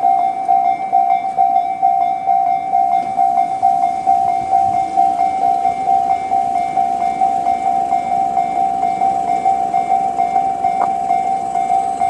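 Japanese railway level-crossing warning bell, the Tobu-style electronic chime (Tobu sound C), ringing with a steady, evenly repeating ding as the crossing signals that a train is approaching.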